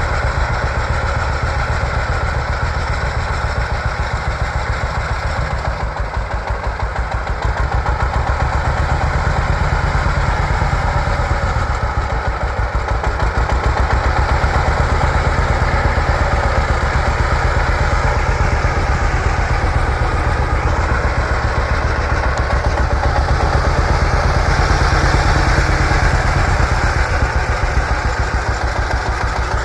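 1950 John Deere Model A tractor's two-cylinder engine running with a steady, rapid popping beat, a little louder from about halfway through.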